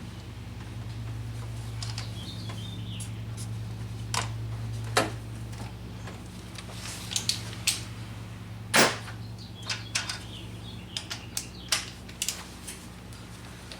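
Hand tools and engine parts being handled, clicking and knocking at irregular intervals, with the loudest knock about nine seconds in and a run of quicker clicks a little later. A steady low hum runs underneath.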